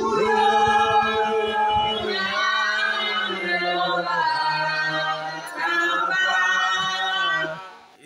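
A group of voices singing a worship song together, unaccompanied, in long held notes that slide from one pitch to the next. The singing fades out just before the end.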